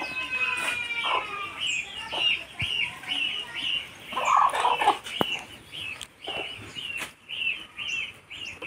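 Domestic hen clucking and calling: a drawn-out call at the start and a burst of clucks about four seconds in, over a steady run of short high chirps repeating about twice a second.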